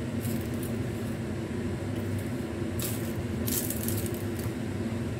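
Eating noises as a person chews and handles a tuna-filled bread roll: a few short crackly rustles, the longest about three and a half seconds in, over a steady low hum.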